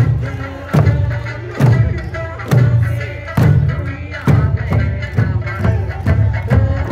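Eisa ōdaiko, large Okinawan barrel drums, struck in unison by the dancers about once a second, over Eisa folk-song music with singing.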